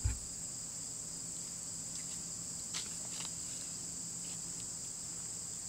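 Steady high-pitched drone of an insect chorus in late-summer grass and trees, with a short low thump at the very start and a few faint clicks near the middle.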